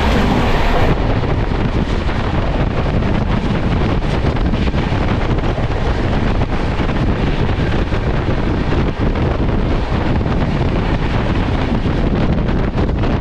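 Sleeper coach of an express train running at speed: a steady rumble and rattle of the wheels on the track, with heavy wind buffeting the microphone.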